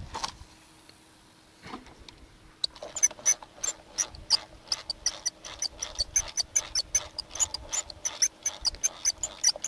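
A rapid, irregular series of sharp clicks, several a second, starting about three seconds in.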